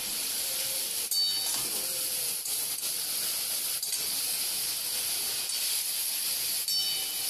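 Broccoli and fried potatoes sizzling steadily in a metal kadai while being stirred, with a few short scrapes of the metal spatula against the pan.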